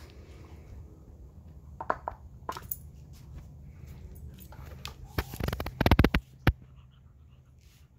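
Alaskan husky snuffling and grunting close to the microphone as it noses at a rubber ball, with a few scattered clicks about two seconds in and a loud burst of snuffling about five to six and a half seconds in.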